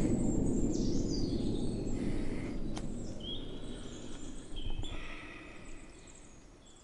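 Small birds chirping over a low, even background noise in a forest, the whole sound gradually fading away.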